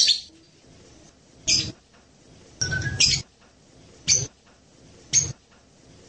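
Blue-crowned hanging parrot (serindit) giving short, sharp, high-pitched calls, four of them about a second apart, the second one longer than the rest.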